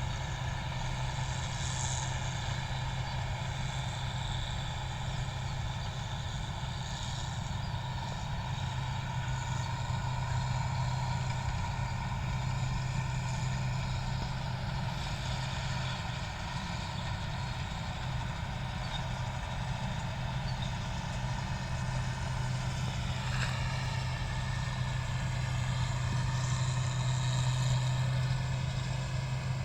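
Paddy combine harvester running steadily: a continuous low engine hum with whining tones above it, which shift in pitch about three-quarters of the way through.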